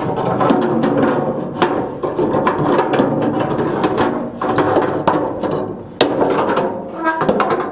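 Background music, with a few sharp knocks and rattles of a metal rear window channel being worked down into a steel pickup truck door.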